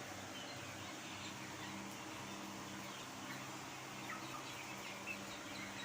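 Poultry in a shed making faint, scattered short calls over a steady low hum.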